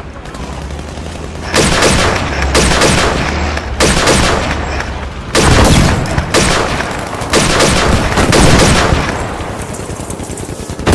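Airsoft guns firing in rapid full-auto bursts, one burst after another, each about a second long, starting about a second and a half in.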